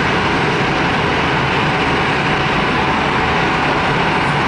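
Airbus A321 jet engines running at takeoff thrust as the airliner climbs away, a loud, steady, even noise.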